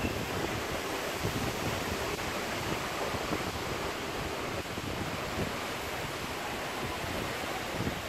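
Storm wind blowing across the microphone: a steady rushing noise with uneven low buffeting.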